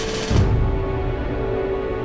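Tense, ominous drama score with sustained held tones, and a deep hit about a third of a second in.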